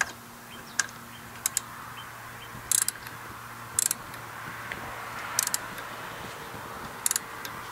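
Torque wrench ratcheting on cylinder head bolts being run down to 140 inch-pounds: about six short bursts of metallic pawl clicks, a second or so apart.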